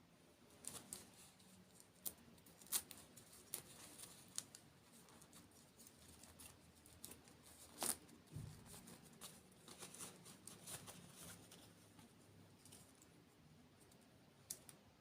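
Quiet close-up eating sounds: scattered crisp crunches and wet mouth clicks as a dessert is bitten and chewed, a few sharper cracks standing out.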